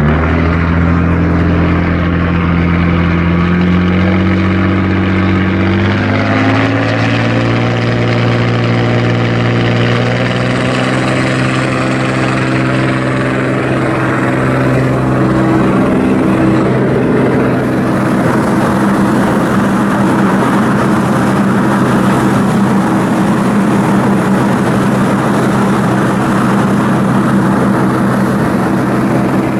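Ship's Hanshin LA30G marine diesel main engine running loud and steady on a sea trial. Its pitch climbs for a few seconds partway through as the engine speeds up, then holds.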